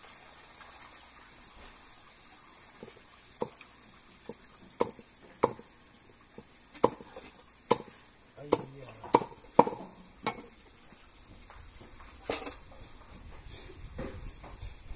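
About a dozen sharp clinks and knocks of hard objects at irregular intervals, from about three seconds in to about twelve, over a faint steady hiss.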